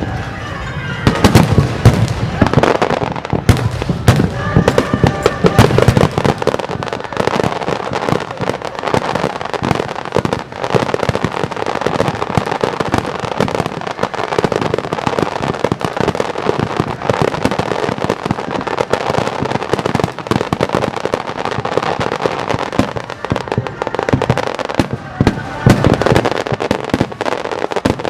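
Fireworks display: a dense, unbroken barrage of bursts and crackling. It is heaviest in the first few seconds and again near the end.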